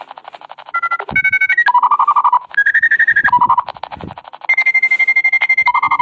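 Dial-up modem sounds over a telephone line: a fast pulsing buzz with a series of beeping tones that jump between pitches, and a steady high tone from about halfway in.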